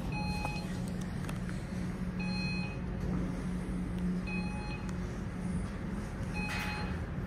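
A short electronic beep of a few mixed pitches, repeating about every two seconds over a steady low hum.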